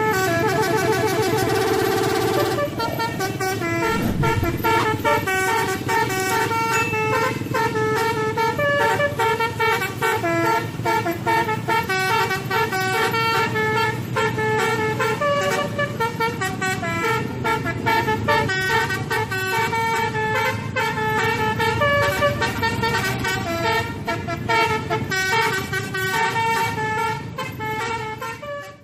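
Telolet bus horn, an Indonesian multi-tone musical horn, playing a tune. It starts with a held chord, then runs through a long string of short stepped notes.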